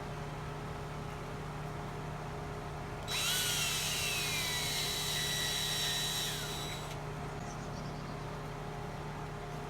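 Power drill running for about four seconds in the middle, its whine sagging in pitch while it runs, over a steady low hum.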